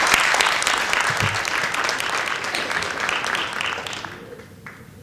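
Audience applauding, with a dense clatter of claps that fades out about four seconds in.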